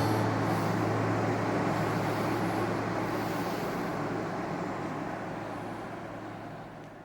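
Steady low engine drone under an even rushing noise, like wind and water, fading out near the end.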